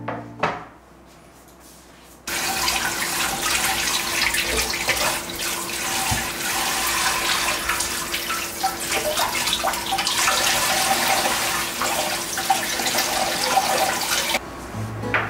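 Kitchen tap running full into a glass bowl in a stainless steel sink, splashing as vegetables are rinsed by hand. The water starts suddenly about two seconds in and stops about a second before the end.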